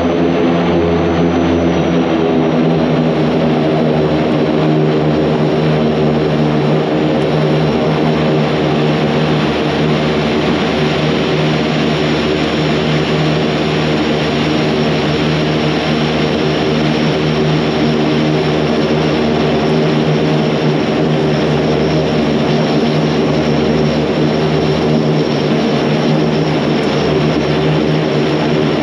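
Antonov An-26's twin Ivchenko AI-24 turboprop engines running at taxi power, heard from the cockpit as a steady, loud drone with an even propeller hum.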